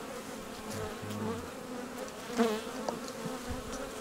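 Honeybees buzzing in a steady, many-voiced hum, with a brief loud swell a little past halfway. The bees are agitated.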